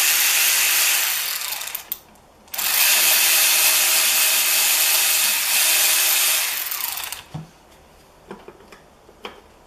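Cordless electric ratchet running in two bursts, about two seconds and then about four and a half seconds after a short pause, spinning bolts out of a YZ125 engine case. A few light clicks follow near the end.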